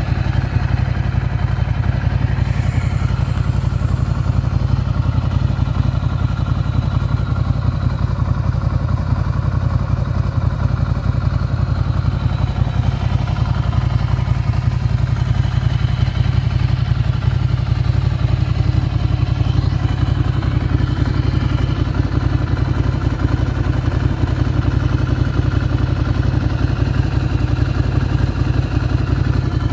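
2016 Ducati Scrambler's 803 cc air-cooled L-twin engine idling steadily.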